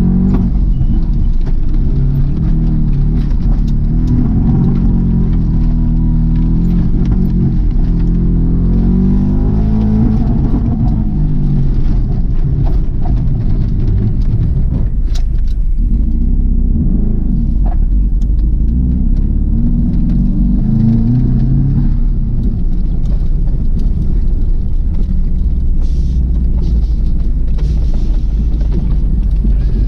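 Subaru WRX's turbocharged flat-four engine driven hard, its pitch climbing and falling again and again as the throttle is pressed and lifted.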